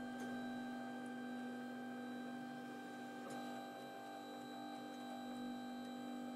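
Ultimaker Original Plus 3D printer running, its stepper motors humming steadily as the print head travels across the glass bed, with a faint click about three seconds in.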